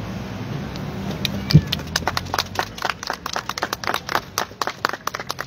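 A small group clapping by hand, scattered claps starting a little over a second in and running on irregularly. Just before the claps, a single low thump is the loudest sound.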